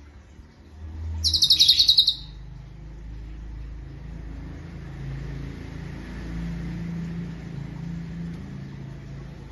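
A cucak cungkok songbird gives one short, loud, rapid trill about a second in, its notes coming about ten to a second. After it comes a low, steady rumble.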